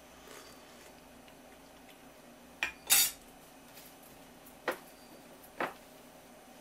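Four short clinks of metal against a pot of boiling broth: two close together about two and a half to three seconds in, the second the loudest, then two more about a second apart, over a faint steady background.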